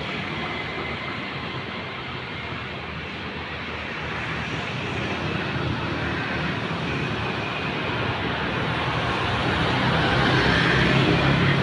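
Motor vehicle engine and road noise, a steady rush with a low hum, growing louder toward the end.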